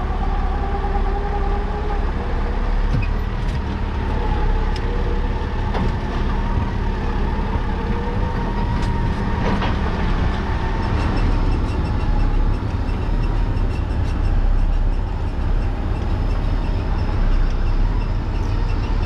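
Massey Ferguson 38 combine harvester running steadily at work, a low engine drone with a faint wavering whine over it and a few light clicks.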